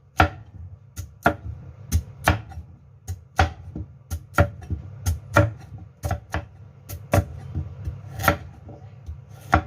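Kitchen knife chopping through fruit on a cutting board, with sharp uneven strokes about one to two a second, often in quick pairs.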